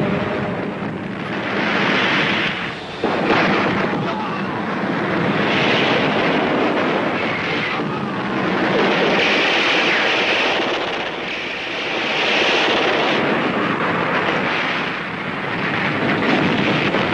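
War-film battle sound effects: a loud, continuous din of explosions that swells and fades every two to three seconds, with a sudden blast about three seconds in.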